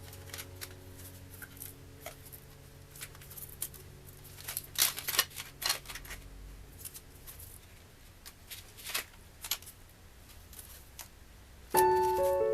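Scattered light clicks and taps over a faint low hum, with music starting near the end.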